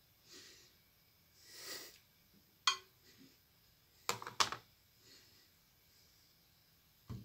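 Metal scissors handled over a glass dish: one sharp click with a short ring, then a quick cluster of clicks as the scissors are put down on the table, with soft breathy hisses before and a dull thump near the end.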